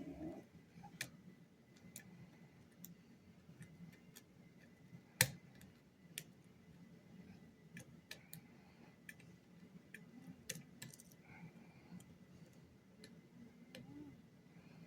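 Faint, irregularly spaced light clicks of a lock pick and tension tool working the pins inside a lock, with one sharper click about five seconds in.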